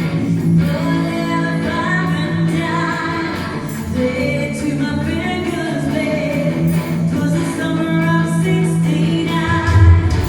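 Live band playing a song during a sound check: a singer over amplified guitar and bass, with a loud low hit near the end.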